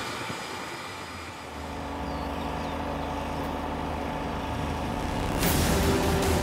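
Steady low engine rumble from Iskander-M launcher vehicles, then about five seconds in a sudden loud roar as a missile launches, with music coming in under it.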